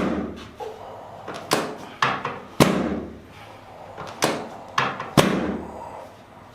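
Chiropractic adjusting thrusts on the sacroiliac joints: sharp knocks, one at the start and then two quick sets of three, about half a second apart.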